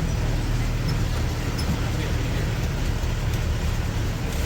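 A motor vehicle's engine running steadily: an even low drone under a constant rush of noise.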